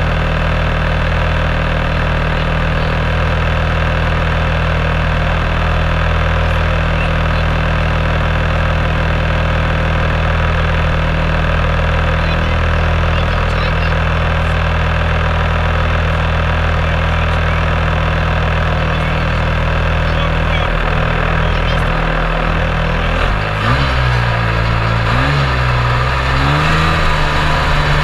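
Snowmobile engine idling steadily close up, then revving up and down a few times near the end as the throttle is worked.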